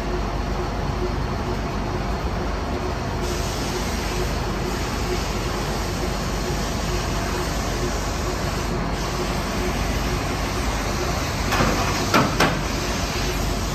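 Water well drilling rig's power unit and hydraulics running steadily, with a faint steady whine over the noise. Two or three short, sharp knocks come close together near the end.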